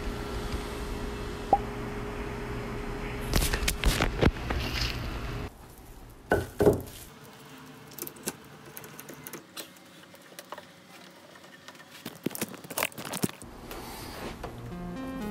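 Bar clamps and pipe clamps being set and tightened on a glued-up laminated 2x4 benchtop: scattered clicks and knocks of metal clamp parts and wooden cauls, in a few short clusters. A steady background noise runs under roughly the first five seconds.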